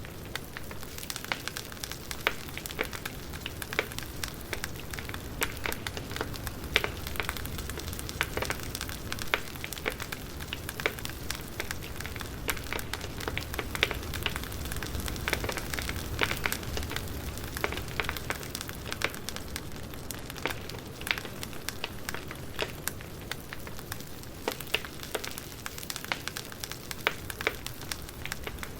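Campfire burning, with irregular sharp crackles and pops over a steady hiss and low rumble of the flames.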